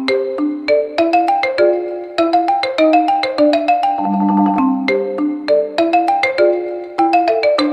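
Background music: a bright marimba-like melody of quick struck notes in a steady rhythm, with a lower held note about four seconds in.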